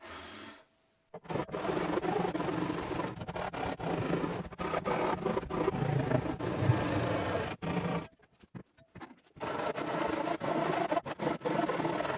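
A saw cutting through the wooden boards of a chest, with short pauses about a second in and again about two-thirds of the way through.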